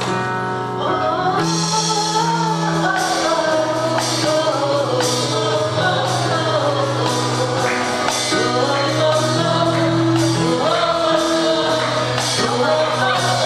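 Gospel worship song with singing over sustained keyboard chords, bass and drums. The drums and cymbals come in about a second in and the music gets a little louder.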